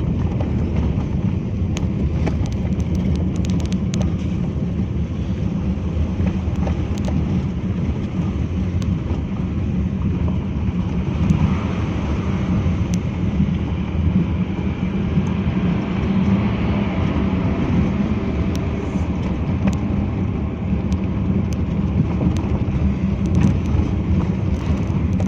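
Car driving on a rough unpaved road, heard from inside the cabin: a steady low rumble of engine and tyres, with a few faint clicks and rattles.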